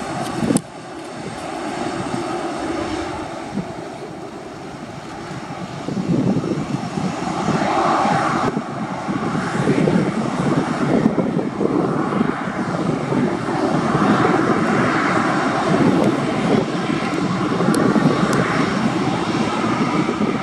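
Jet engines of a Boeing 737-800 running as the airliner taxis and lines up on the runway. The steady engine noise grows louder about six seconds in.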